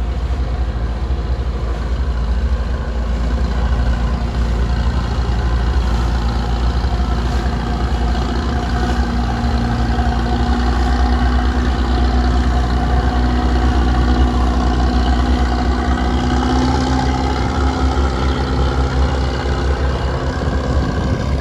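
Diesel engines of bottom-trawl fishing boats running steadily at low speed, a deep continuous drone.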